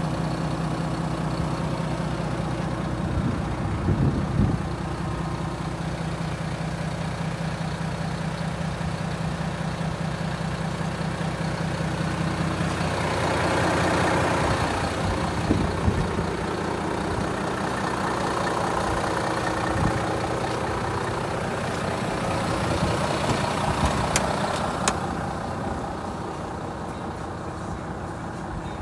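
Volvo FM450 truck's 13-litre six-cylinder diesel idling steadily, with a few knocks along the way.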